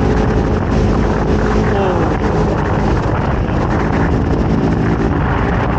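Small motorboat running at speed: a steady engine drone over the rush of water from the hull, with wind buffeting the microphone.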